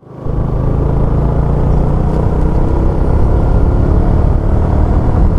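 Motorcycle riding along: a steady engine drone with a low rumble, no change in pace.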